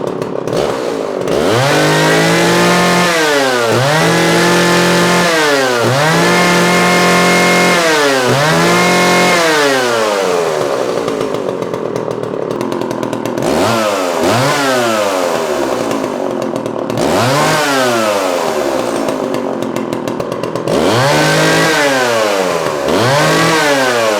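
Vintage Homelite 360 two-stroke chainsaw running, idling between repeated throttle blips. It revs up and back down about eight times, holding at full revs for a second or two several times in the first half. The saw has been brought back to running after years in storage.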